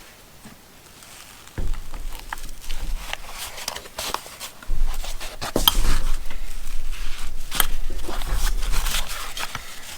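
Hands handling a bit-and-extension holder case: scattered clicks, rustles and light knocks of its plastic and contents, with low bumps of handling from about one and a half seconds in and again through the middle.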